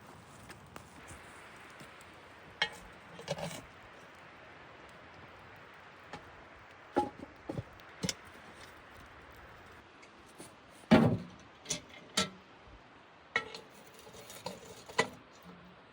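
Scattered clinks and knocks of kitchen utensils and dishes being handled, about a dozen separate sharp hits, some ringing briefly, the loudest about eleven seconds in, over a faint steady hiss.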